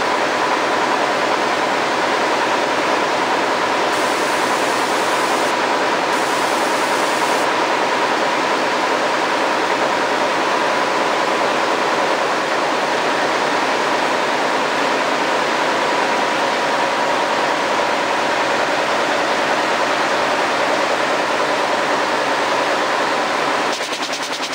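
Air-jet loom weaving denim: a loud, steady mix of rapid mechanical clatter and hissing air, with a steady whine running through it. The sound drops somewhat and changes near the end.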